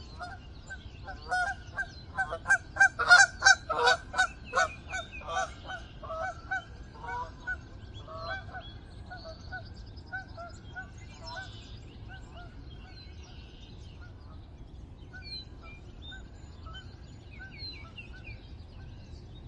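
A flock of geese honking as it flies over: a run of honks that swells to its loudest about three seconds in, then fades away. Fainter honks carry on afterwards, with small bird chirps near the end.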